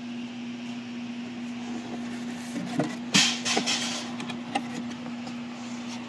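A steady low hum, with a brief burst of rustling and a few light knocks a little over three seconds in.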